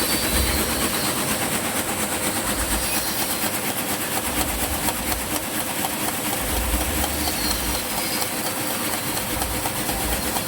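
Satay-skewer polishing machine running steadily: a motor drone under a fast, continuous rattle of bamboo sticks being tumbled and polished.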